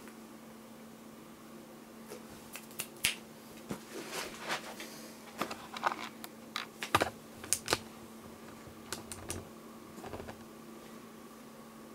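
Irregular sharp clicks and taps, with a couple of soft thumps about halfway through: a tabby cat's claws and paws on a taped cardboard box and a tabletop as it climbs down off the box.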